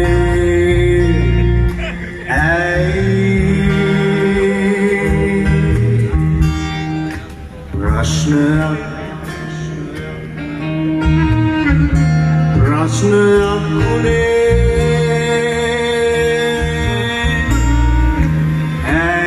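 Band music: a singer holding long, wavering notes over guitar and a steady bass line.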